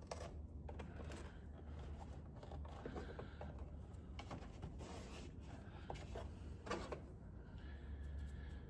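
Faint handling noises: light scrapes, rustles and small clicks of hands working with small parts, over a steady low hum.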